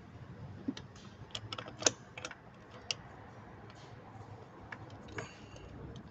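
Light, irregular metallic clicks and taps of a long-shafted hand tool working a bolt in an open engine bay, with one sharper click about two seconds in.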